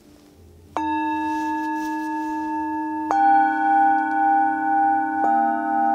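Hand-hammered metal singing bowls struck with a mallet one after another, three strikes about two seconds apart, each a little lower in pitch than the last. Each bowl keeps ringing under the next, so the tones overlap with a slow wavering pulse.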